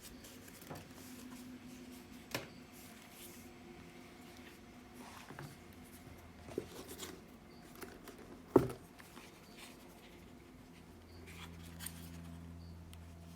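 Headphones being handled: scattered small clicks and taps with light rustling, and one sharper knock about eight and a half seconds in.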